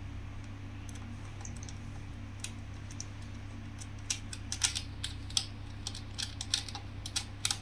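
Small irregular clicks and taps of a metal nut, washer and wire ring terminal being handled and fitted onto a threaded screw terminal, starting about four seconds in, over a steady low hum.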